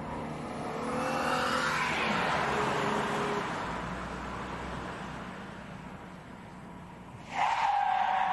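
A car drives by accelerating, then about seven seconds in its tyres squeal loudly as a hard emergency stop without ABS locks the wheels into a skid.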